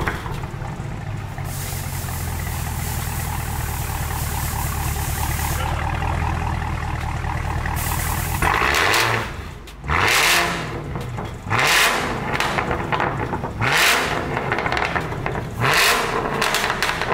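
Supercharged 6.2-litre LT4 V8 of a 2022 Chevrolet Camaro ZL1, running through an AWE 3-inch cat-back exhaust with an X-pipe and the muffler removed. It idles steadily for about eight seconds, then is revved five times in short blips, each rising and falling in pitch.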